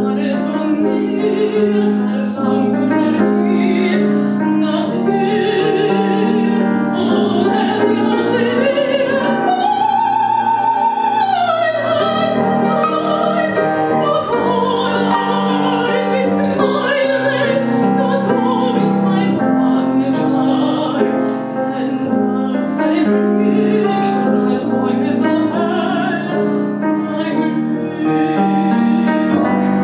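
Mezzo-soprano singing an operetta song with vibrato over piano accompaniment. She rises to a long held high note about nine seconds in and comes down from it about three seconds later.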